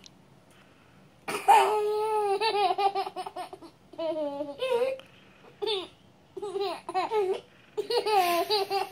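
A toddler laughing in high-pitched bursts, starting about a second in; the first burst is the longest and loudest, followed by four shorter ones.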